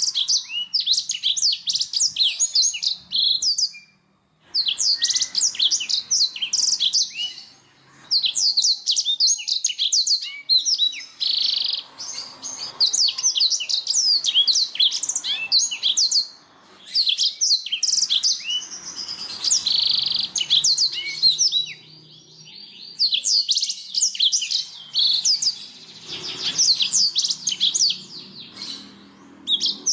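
Domestic canary singing: long runs of fast, high-pitched trills and chirps in phrases a few seconds long, with short pauses between them.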